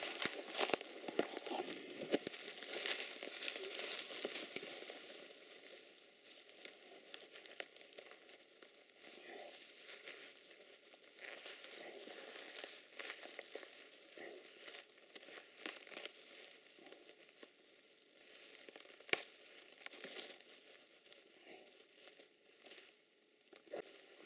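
Dry leaves, grass and twigs rustling and crackling close to the microphone as a person pushes through undergrowth and handles the vegetation, busiest in the first few seconds and sparser after, with one sharp snap about nineteen seconds in.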